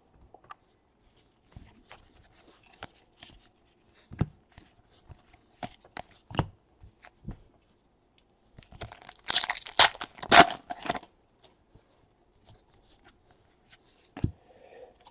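A foil wrapper on a Panini Donruss baseball card pack is torn open about nine seconds in, with a louder ripping rustle. Before it come faint, scattered clicks and taps as stiff cardboard trading cards are shuffled in the hand.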